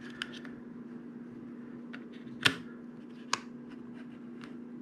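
A few small, sharp plastic clicks as an earbud is seated in its Sony WF-1000XM4 charging case and the case lid is shut, the loudest about halfway through, over a faint steady hum.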